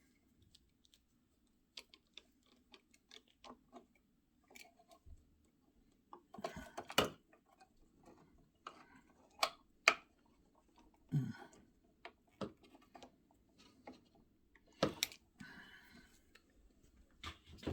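Scattered small clicks, taps and knocks of hands and a screwdriver working on a wall light switch and its wiring, with a few louder knocks through the middle.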